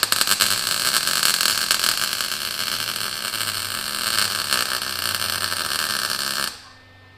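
Arc welder crackling steadily as a nut is welded onto a broken exhaust manifold stud. It cuts off abruptly about six and a half seconds in.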